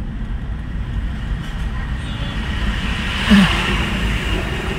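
Road vehicle driving through city traffic: a steady low rumble of engine and road noise, with one brief louder sound about three seconds in.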